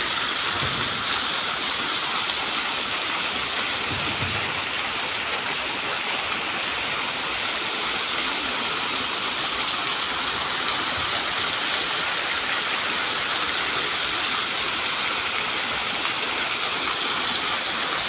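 Rows of fountain jets spraying up and splashing back into a pool: a steady rushing hiss of falling water, growing a little louder about two-thirds of the way through.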